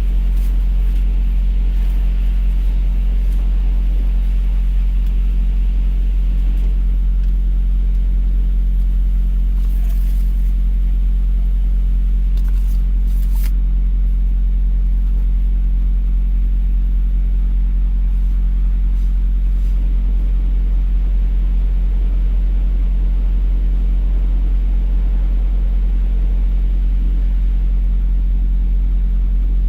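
Semi-truck's Cummins ISX diesel engine running steadily: a loud, even low hum with steady engine tones that never changes.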